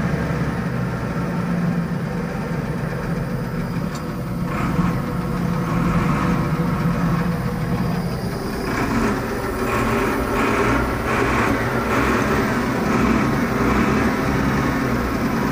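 Diesel engine of a Volvo BM 861 articulated dump truck running steadily just after its first start in two years, its sound growing fuller and harsher a little past halfway.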